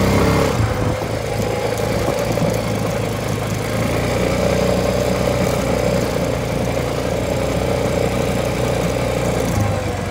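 2005 Honda FourTrax ATV engine running steadily as the quad is ridden at low speed, its note lifting a little about four seconds in.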